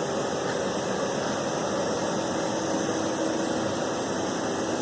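Steady hum and hiss of a running CNC turning lathe, with faint steady machine tones and no clear strokes or impacts.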